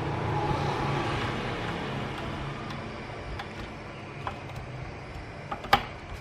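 A few light clicks and taps of a hand tool against the metal transistor clamps and heatsink inside an inverter welder, the sharpest near the end, over a steady background noise.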